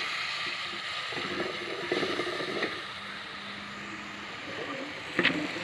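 Meat and chopped tomatoes sizzling in a metal pot over a gas-cylinder burner as the meat is browned, with a metal spoon stirring and scraping the pot about two seconds in.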